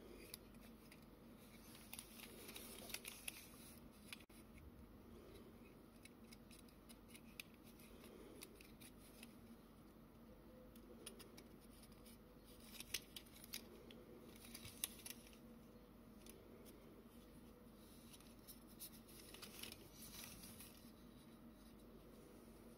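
Faint, scattered clicks and scrapes of a sheet-metal tin toy car being handled and turned over in the fingers, coming in a few small clusters, over near silence with a faint steady low hum.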